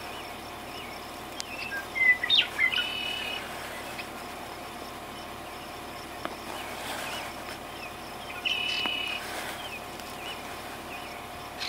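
Swallows calling: short chirps and buzzy twittering notes in two bouts, the first about two seconds in and the second about eight and a half seconds in, over a steady faint high drone.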